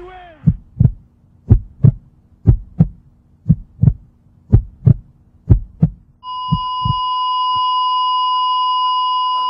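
Heartbeat sound effect: low double thumps, lub-dub, about one pair a second, seven pairs in all. A little past six seconds in, a steady high electronic tone comes in and holds while the last beats fade under it.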